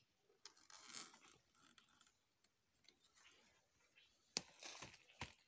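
Near silence with faint rustling, and two short sharp clicks near the end.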